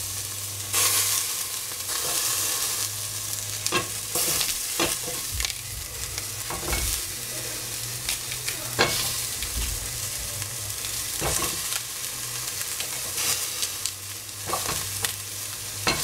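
Sliced shiitake mushrooms and capsicum sizzling in oil in a stainless steel pot, with scattered knocks and clatter from stirring with a wooden spatula and from cauliflower florets being dropped into the pot.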